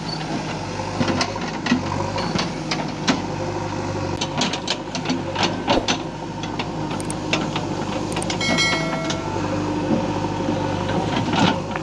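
JCB 3DX backhoe loader's diesel engine running steadily while the backhoe bucket digs and drags soil and stones, with frequent sharp clanks and knocks from the bucket and its linkage. A brief high squeal comes about eight and a half seconds in.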